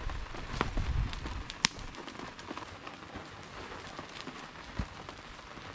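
Footsteps thudding on dirt as someone walks up to a campfire, with a few sharp clicks, over a steady patter of light rain.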